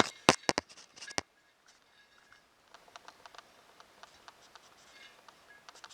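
A string line being pulled round underneath a spoked wheel: a few sharp clicks in the first second, then faint scratching and rustling.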